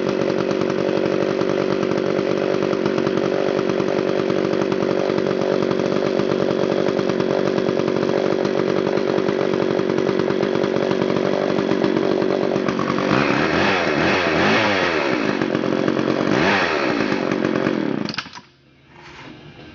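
Two-stroke engine of a vintage Homelite XL 925 Super chainsaw (5 cubic inch) running steadily. It is then revved up and back down twice and shuts off sharply near the end.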